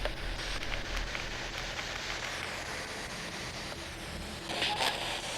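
Steady hiss of night-time outdoor background noise, with a few faint scuffs and a short rustle near the end.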